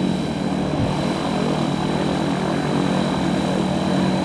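MT-03 gyroplane's engine and pusher propeller running steadily at low power as it taxis on grass.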